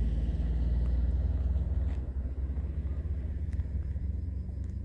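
Low, steady rumble of wind buffeting the microphone, easing slightly toward the end.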